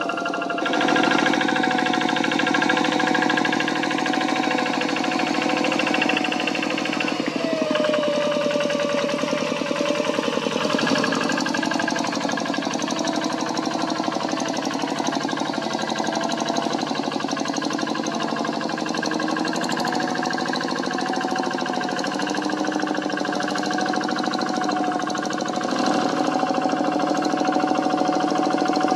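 Kubota single-cylinder diesel engine of a two-wheel hand tractor running steadily while ploughing. It has an even, rapid beat, and a tone falls in pitch about eight seconds in.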